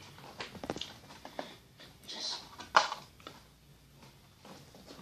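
Small toys being handled: scattered light clicks and rustles, with one sharp knock about three seconds in.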